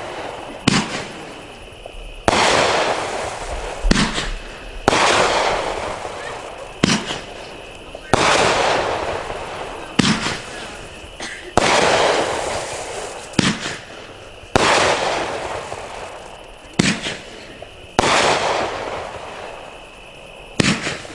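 A 25-shot, 500-gram Vanguard 'Rescue' firework cake firing shot after shot, roughly one shot every one to two seconds. Each sharp bang trails off into a hiss that fades over a second or two.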